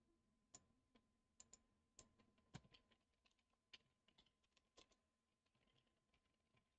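Faint computer keyboard typing: irregular, scattered key clicks as a folder path is typed.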